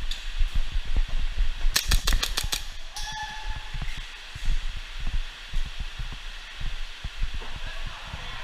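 An airsoft gun firing a quick string of about six sharp shots about two seconds in, among dull thuds of movement.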